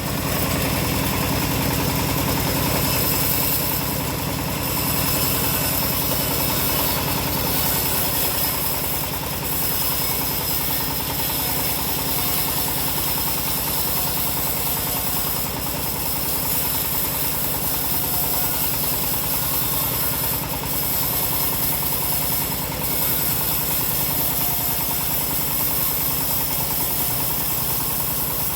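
Homemade band sawmill running steadily, its drive motor giving a constant drone with a fixed pitch.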